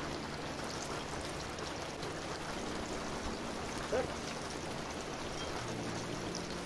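Floured chicken pieces deep-frying in hot oil in an aluminium pot over a wood fire: a steady sizzle. A spoon turns a piece about four seconds in, making a brief sound.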